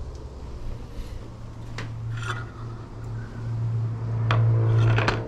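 A plate and a glass tumbler handled and set down on a wooden table, with a few light knocks, over a steady low hum that grows louder in the second half.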